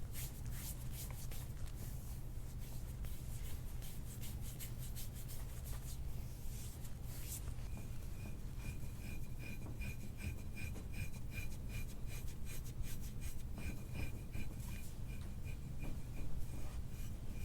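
Massage strokes rubbing over an oiled back: a continuous run of short rubbing, scraping strokes on the skin.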